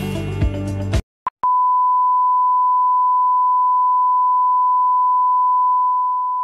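Intro music cuts off about a second in. After a short blip, a steady single-pitch test tone plays, the beep that goes with television colour bars, and fades near the end.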